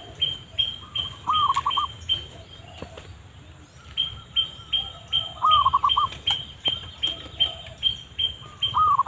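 Zebra dove (perkutut) cooing: short quick runs of three or four soft rising-and-falling notes, repeated about every four seconds. Behind it, a high chirp repeats about three times a second.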